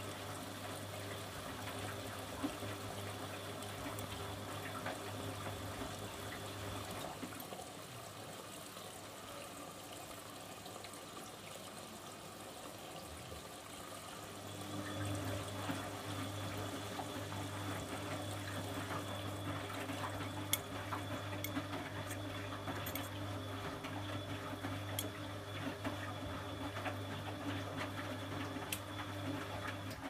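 Bosch WFG2020 front-loading washing machine tumbling its load: a steady motor hum under wet laundry sloshing in the water in the drum. The hum eases for several seconds around the middle, then comes back louder about halfway through as the drum turns again.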